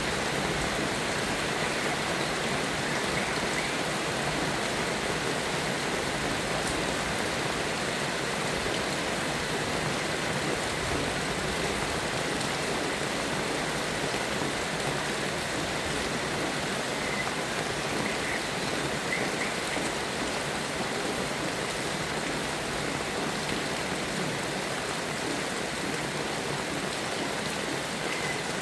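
Steady rain falling, an even hiss throughout, with a few faint short bird chirps about three seconds in, around the middle and near the end.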